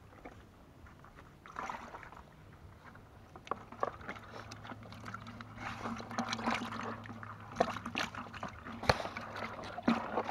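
Water sloshing and splashing in a plastic bucket as a hand grabs at live fish, in irregular splashes with several sharp knocks against the bucket.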